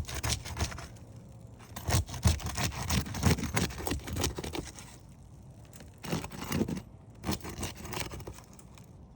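Sealed asphalt shingle tabs being pried and peeled apart with a roof snake pry bar, in irregular tearing and scraping strokes that pause briefly about five seconds in. The sealant bond pulls some of the shingle's mat away with it: matting transfer.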